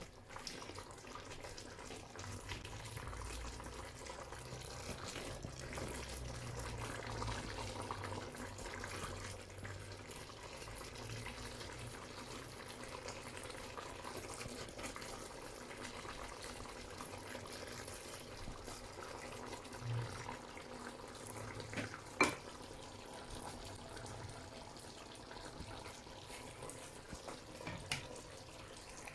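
Faint, steady hiss of running water, with one sharp click about two-thirds of the way through.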